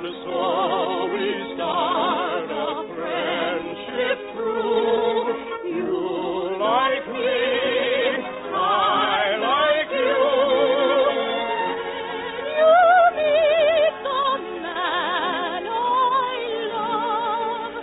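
Operatic singing with wide vibrato over an orchestra, an operetta number.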